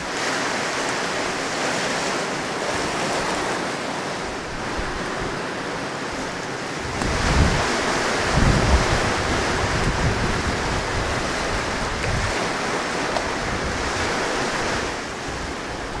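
Sea surf washing on the shore under steady wind, with gusts buffeting the microphone in low rumbles, most strongly about seven to nine seconds in.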